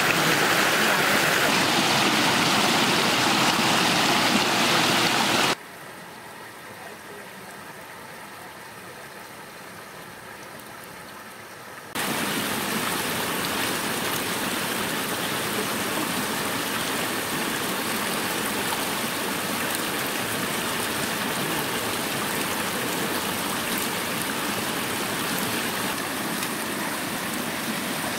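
Stream water rushing and splashing as it pours over a slatted bamboo fish trap, a steady even rush. About five seconds in it drops suddenly to a much quieter rush, and about twelve seconds in it comes back loud again.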